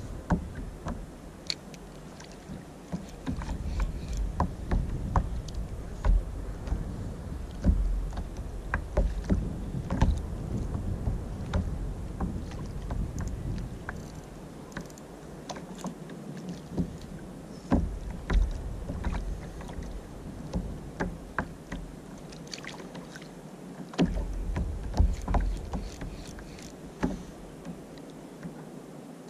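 Small waves lapping and slapping against a plastic fishing kayak's hull, with irregular short knocks and splashes and a low rumble that comes and goes.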